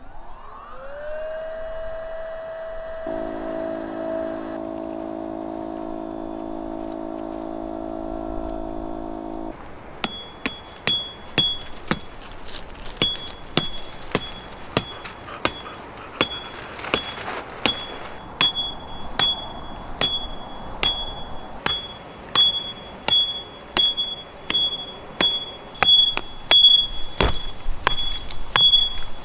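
A small motor spins up with a rising whine, runs steadily with a second steady hum joining in, and stops about a third of the way in. Then come regular sharp metal strikes, about one and a half a second, each with a ringing ping.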